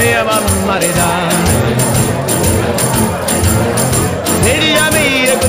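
Music: a song with a wavering singing voice over a steady beat.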